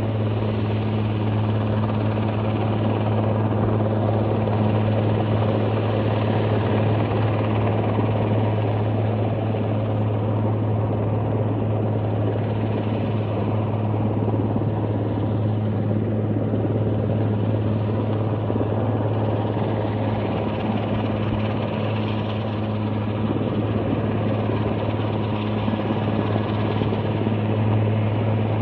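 Distant helicopter hovering, a steady low drone of rotor and engine that holds without a break.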